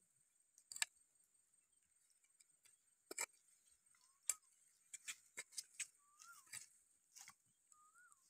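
A wooden stick scraping and knocking in loose dry soil at a fire pit, in short irregular scrapes and taps. A faint steady insect hiss runs under it, and a bird gives a few short whistles.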